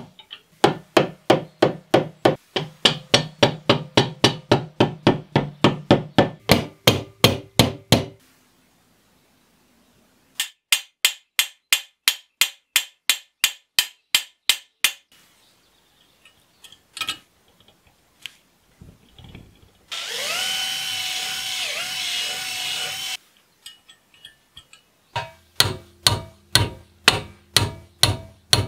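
Runs of quick, even hammer taps on metal, about three a second, driving a pin through a brass bayonet grip clamped in a vise. About two thirds of the way through, a small power tool spins up with a rising pitch and runs steadily for about three seconds.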